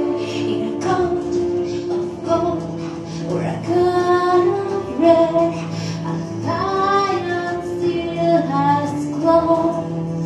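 A woman singing a slow melody live into a microphone, in long held notes over a steady instrumental accompaniment.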